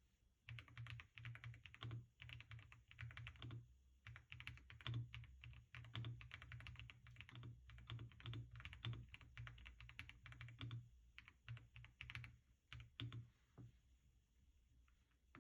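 Typing on an AKKO MOD007B PC mechanical keyboard: quick runs of key clicks with a short pause about four seconds in, thinning out and stopping about thirteen seconds in.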